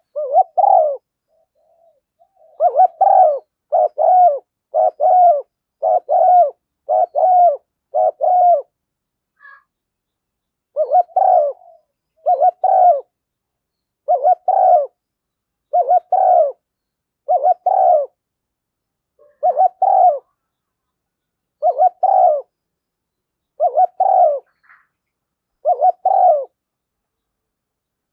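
Spotted dove cooing: a long series of short, repeated coos, closely spaced at first, then about one every second and a half after a brief pause.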